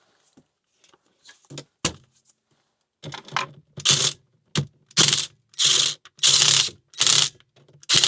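Power drill driving a fastener in about seven short trigger bursts, each a brief whir, after a few light clicks at the start.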